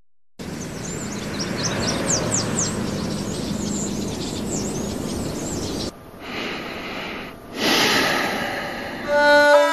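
Outdoor street ambience: a steady background hiss with small birds chirping in quick bursts. Near the end, music with long held notes comes in.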